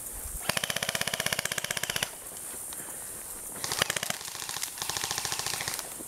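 Airsoft rifle firing two rapid full-auto bursts of fast, even clicks: a burst of about a second and a half, then a longer one of a little over two seconds.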